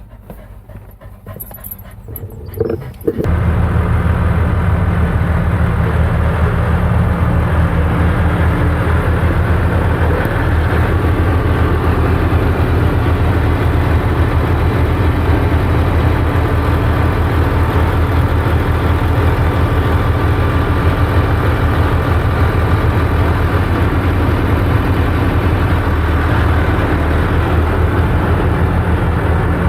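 Tractor engine running steadily at a constant speed, cutting in abruptly about three seconds in.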